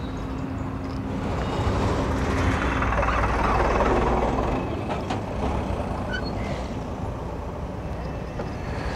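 A heavy truck driving past close by: its engine rumble and road noise build, are loudest about three to four seconds in, then fade away, over steady road traffic.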